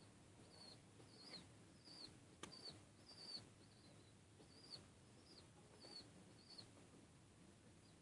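Faint, high-pitched bird chirps repeating every half second or so, each a short bending note. There is a single sharp click about two and a half seconds in.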